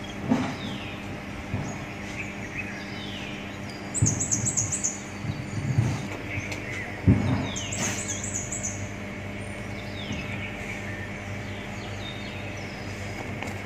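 Small birds chirping and trilling over a steady low mechanical hum. A few dull thuds come between four and six seconds in, and a sharper knock, the loudest sound, about seven seconds in.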